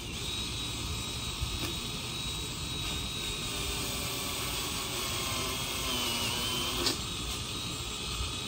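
Skil battery pole saw running, a steady motor and chain whine whose pitch sags about six seconds in as the chain bogs into a limb, followed by a sharp crack a second later.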